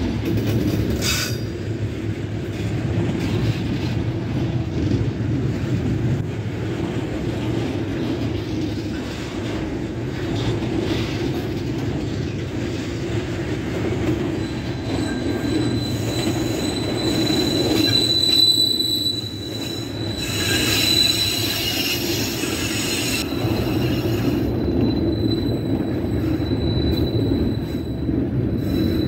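Loaded container flatcars of a freight train rolling past close by: a steady rumble of steel wheels on the rails. About halfway through, a thin, high, steady squeal from the running gear joins in and keeps going.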